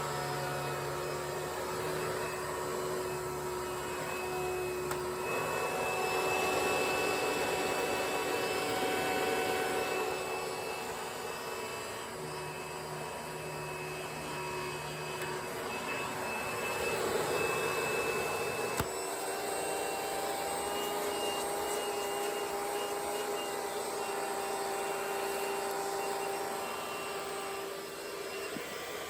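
Hoover Elite Twin Chamber direct-air bagless upright vacuum running, its 6.9 amp motor giving a steady whine over a rush of air. The airflow swells and eases a couple of times, with a single sharp click about two-thirds of the way through, after which the motor note shifts slightly.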